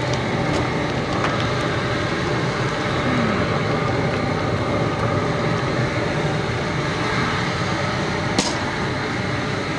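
Propane burner under a Loco Cookers crawfish boiler running steadily, with the seasoned water at a rolling boil. A single sharp clack a little over eight seconds in.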